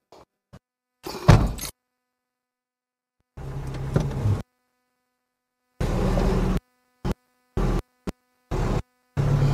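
A vehicle door shuts about a second in, then the old Toyota SUV's engine turns over in several short spells and is running steadily near the end.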